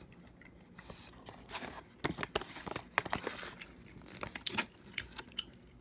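A foil-lined freeze-dried meal pouch crinkling as it is handled and a metal spoon stirs and scrapes the rehydrated rice and beans inside, in irregular crackles that start about a second in.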